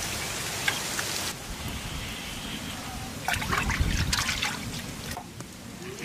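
Water splashing and dribbling as hands wash and lift goat intestines in a metal basin of water, with a cluster of splashes about three to four seconds in.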